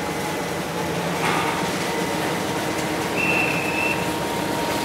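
Steady drone of a moored car ferry's engines running at the pier. About three seconds in there is a short high tone.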